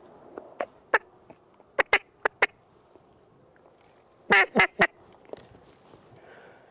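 Short, sharp duck quacks, scattered singly and in pairs, then a quick run of three louder quacks about four and a half seconds in.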